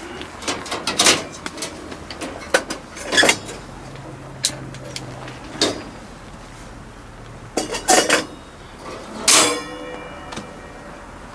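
Sharp metal clicks and knocks from a portable kerosene heater's front grille and burner access being opened and handled to light it, about seven in all, with the loudest a ringing metal clang about nine seconds in.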